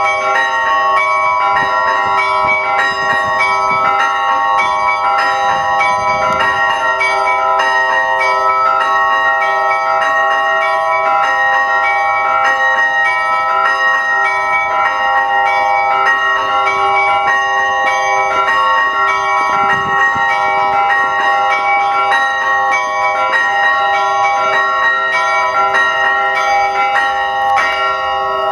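Orthodox church bells rung in zvon style: several bells of different pitches struck over and over in a fast, continuous, repeating pattern, their tones ringing on and overlapping.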